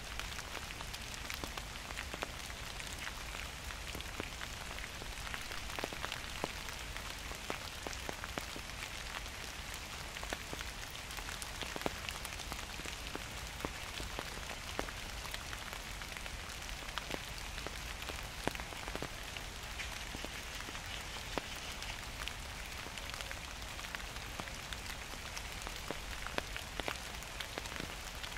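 Gentle autumn rain falling steadily: a constant patter with many separate drops ticking close by.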